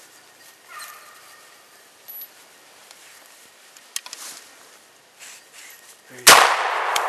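Faint rustles and ticks, then a single loud gunshot about six seconds in, its report echoing on and slowly fading through the woods.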